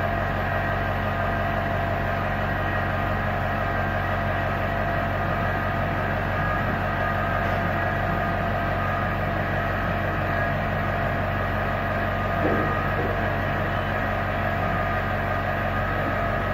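Steady mechanical hum of workshop machinery running, several fixed tones held without change.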